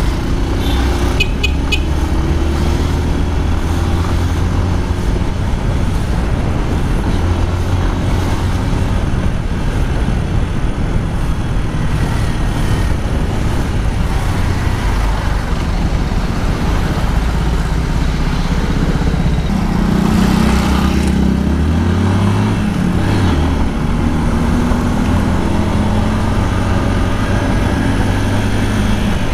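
Motorcycle engine running under way through city traffic, its pitch rising and falling with the throttle and climbing about two-thirds of the way in, over steady road noise from the surrounding buses and cars.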